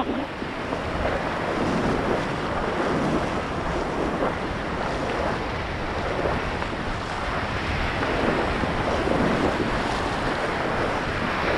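Ocean surf washing up over shallow sand, mixed with steady wind noise buffeting the microphone.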